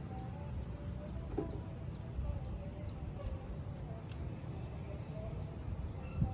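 A bird chirping: short, high chirps that fall in pitch, repeating about twice a second over a low background rumble.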